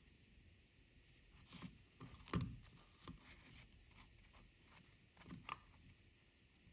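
Near silence broken by a few soft knocks and clicks, the loudest about two and a half seconds in.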